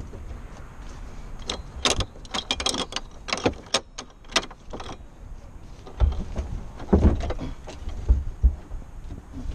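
Metal rescue hardware clinking and rattling as it is handled: a quick run of sharp clinks through the first half, then dull thumps and rubbing of gloved hands and gear against the fiberglass bucket.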